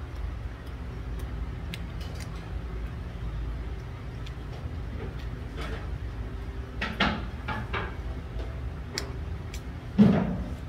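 Indoor restaurant room noise: a steady low hum with scattered light clicks and clatters, a few knocks about seven seconds in and a louder thud near the end.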